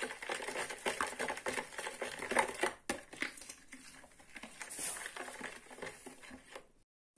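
Metal spoon stirring milk in a plastic bowl, scraping and clicking quickly against the bowl's sides and bottom. It gets quieter after about three seconds and stops abruptly near the end.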